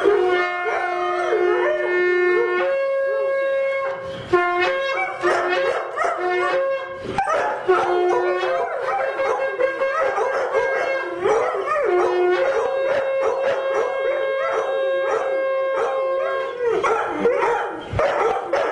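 A horn blown in long, steady held notes that step up in pitch, with two Airedale terriers howling along over it in wavering, sliding howls. The horn drops out about two seconds before the end, leaving the dogs' howls and yips.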